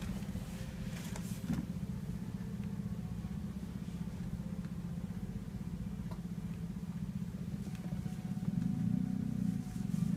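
A steady low mechanical hum with a fast flutter, growing louder near the end, with a few faint soft taps over it.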